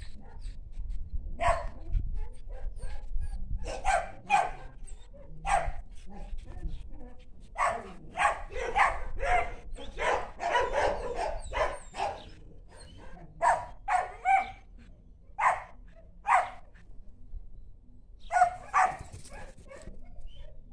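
A dog barking repeatedly in short barks, singly or in pairs, coming more thickly around the middle, with a pause of about two seconds before a last pair near the end.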